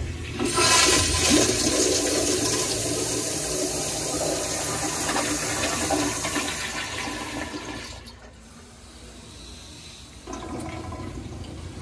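Kohler Wellcomme toilet flushed by its flushometer valve: a sudden start, then loud rushing water for about eight seconds that dies down afterwards.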